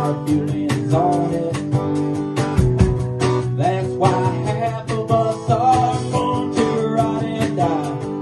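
Live band music: an acoustic guitar strummed over a drum kit played with steady, regular beats and cymbals.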